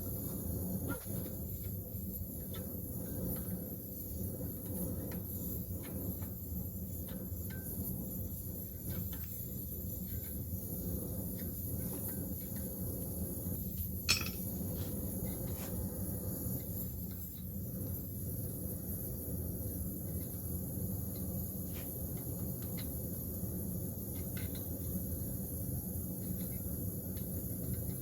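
Steady low rumble with scattered light clinks of metal; one sharp, ringing metal clink about halfway through.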